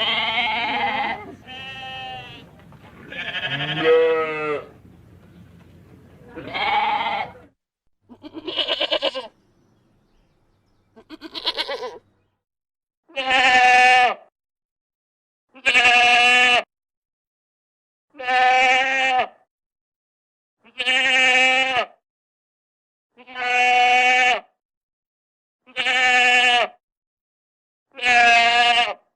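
A goat bleating over and over. The first half holds several bleats that vary in pitch and length over a faint background hiss. From about halfway through come seven near-identical bleats, each about a second long, spaced about two and a half seconds apart, with silence between them.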